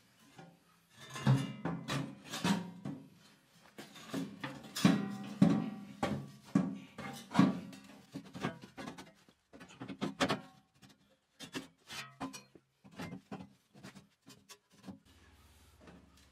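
The steel auger of a 42-inch two-stage snowblower clunking, scraping and rattling against its sheet-metal housing as it is worked back into place, with irregular knocks that ring briefly, loudest in the first half.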